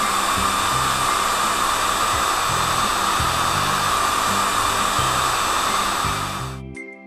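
Steady whirring hiss of a cartoon car-wash machine's spinning wheel brush, over background music with a bass line. The hiss fades out near the end.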